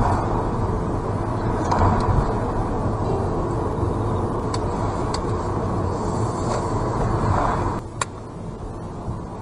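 Steady road and tyre noise of a car driving at low speed, heard inside the cabin through a dashcam microphone, with a low rumble and a few faint ticks. About eight seconds in the noise drops quieter, marked by a short click.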